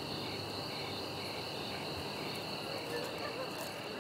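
Steady chorus of chirping insects, like crickets, with a pulsing chirp about two to three times a second over a high continuous trill.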